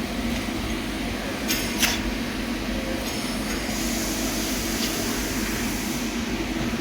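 Steady hum and hiss of a TIG welding setup working a filling pass on stainless steel, with a couple of short sharp ticks about one and a half to two seconds in.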